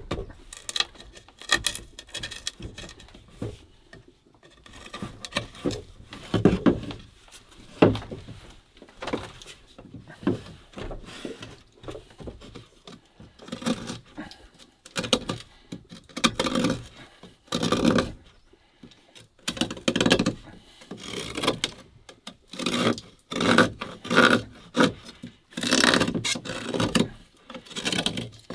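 A large knife chopping and scraping into a green bamboo pole, cutting a notch and then a round hole through its wall: irregular runs of sharp strokes and scrapes with short pauses between them.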